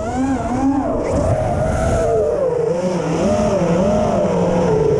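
FPV freestyle quadcopter's brushless motors and propellers whining, the pitch swelling up and down every second or so as the throttle changes, over a low rush of wind noise.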